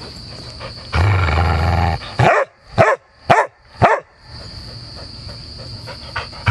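A dog growls for about a second, then barks four times in quick succession, about half a second apart.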